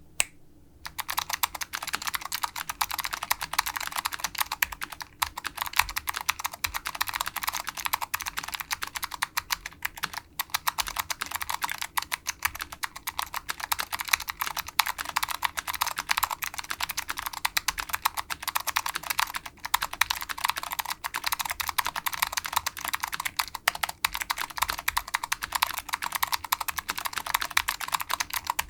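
Continuous fast typing on a custom tenkeyless mechanical keyboard with vintage Alps SKCM Blue clicky switches on a Delrin (POM) plate in a polycarbonate case: a dense stream of sharp key clicks, starting about a second in.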